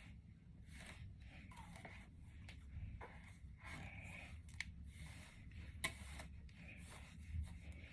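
Faint, irregular strokes of a brush being pulled through a synthetic wig's fibres to brush out the tangles.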